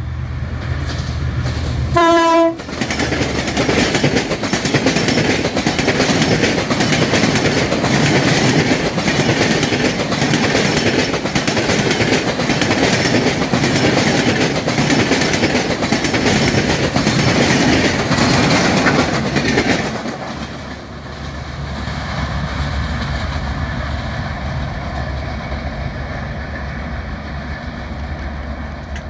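A diesel-hauled Bangladesh Railway intercity passenger train gives one short horn blast about two seconds in, then passes close by at speed, with loud wheel clatter over the rail joints. The noise drops sharply after about eighteen seconds and gives way to a quieter, steady low rumble.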